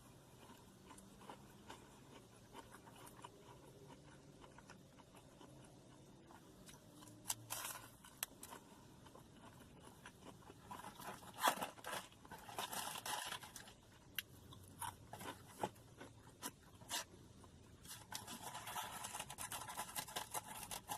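Close-up mouth sounds of a person eating crispy fried chicken: crunching and chewing with scattered small crackles, and louder bursts of crunching about halfway through and again near the end.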